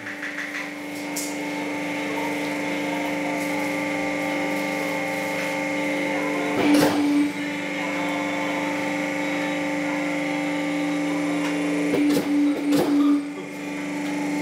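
A workshop machine's electric motor starting up and running with a steady hum. A short louder burst of noise comes about seven seconds in, and a few more near the end.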